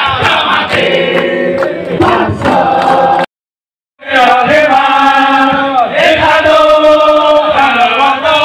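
A large group of men singing a chant-like song together, with long held notes. The sound cuts out completely for most of a second about three seconds in.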